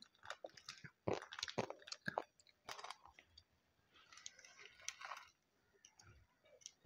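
Hands squeezing and tossing a crisp singju salad of shredded greens and fried strands, giving scattered faint crunches and crackles, busiest around four to five seconds in.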